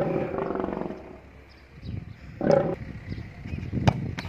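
A loud, drawn-out cry lasting about a second, a shorter cry around two and a half seconds in, then the sharp thud of a football being kicked in a penalty shot near the end.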